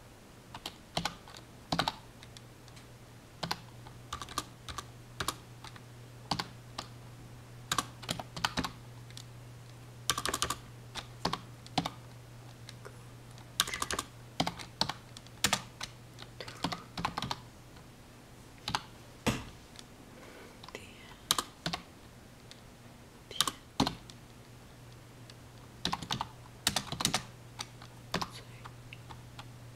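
Typing on a computer keyboard: irregular bursts of keystroke clicks with short pauses between them, over a steady low hum.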